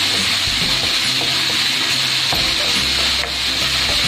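Diced chicken frying in hot oil in a non-stick frying pan: a steady sizzle, with a spatula stirring and pushing the pieces around the pan.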